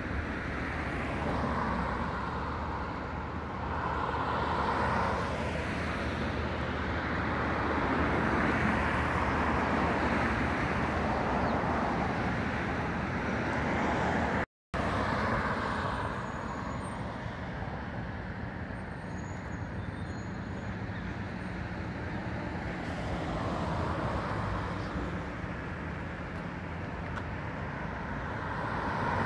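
Road traffic on a city street: vehicles passing, their engine and tyre noise swelling and fading several times over a steady background hum. There is a brief dead gap about halfway through.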